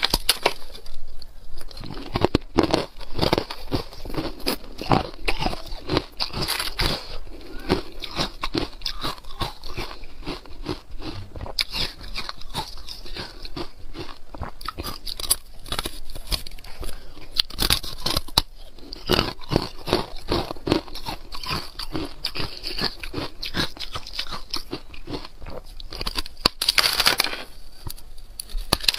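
Carbonated ice cubes being bitten off a frozen cluster and chewed: a dense, continuous run of crisp cracks and crunches, with sharper bites standing out now and then, loudest near the end.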